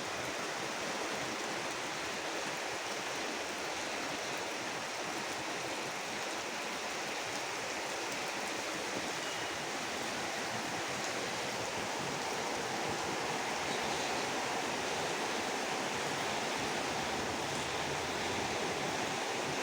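Heavy rain falling steadily, a dense, even rushing hiss with no letup.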